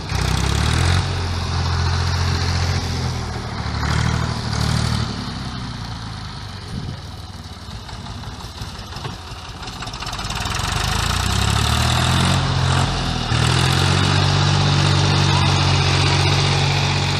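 Ursus C-330 tractor's two-cylinder diesel engine running. It fades as the tractor moves away through the middle, then grows louder again and runs steady over the last few seconds as it comes back.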